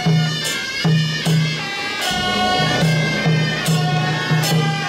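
Taiwanese procession band playing: a suona carries a melody over a steady run of drum beats, with several crashes of hand cymbals.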